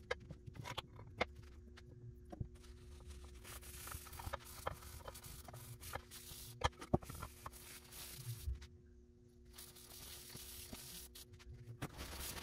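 A paper towel rubbing and wiping stain onto a carved wooden plaque, in on-and-off spells, with scattered sharp clicks and taps of the wood and tins being handled. A faint steady hum runs underneath.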